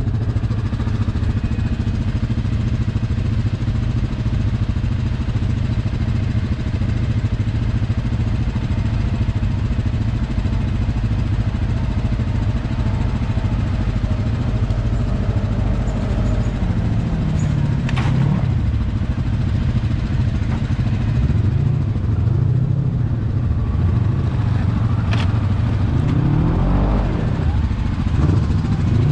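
ATV engine running at low trail speed. From about halfway its pitch rises and falls as the throttle is worked, with two sharp knocks, one in the middle and one later.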